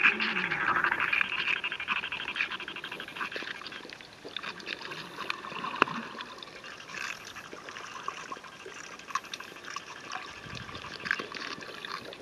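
Underwater sound on a coral reef: a steady crackle of many tiny clicks over a wash of water noise, louder for the first few seconds and then a little softer.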